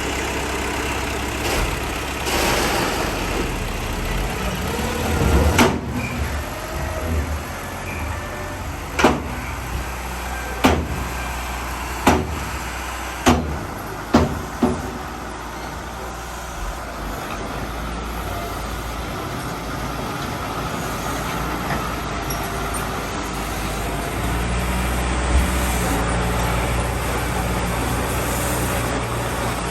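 Heavy earthmoving machinery's diesel engine running steadily, with a string of sharp knocks in the middle stretch. The engine drone grows heavier near the end.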